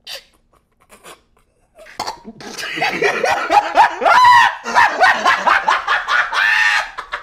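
A man's loud, high-pitched frightened screaming: a run of shrieks and yelps that starts about two seconds in and lasts about five seconds.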